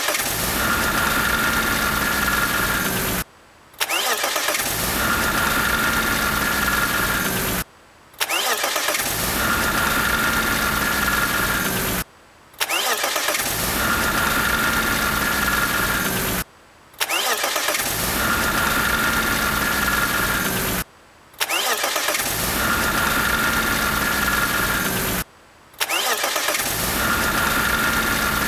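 BMW E36 M3's S50B30 straight-six engine running with a diesel-like VANOS rattle, from bearings inside the VANOS splined gear that have worn loose; the rattle does not mean the VANOS has stopped working. The same few-second stretch repeats about seven times, cut apart by short silent gaps; each time the engine note rises over about a second and then holds steady.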